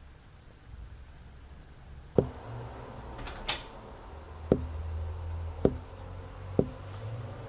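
Four sharp, hollow wooden knocks from plywood sheets being laid and set down on the timber joists of a raised floor, with a brief scrape between the first two.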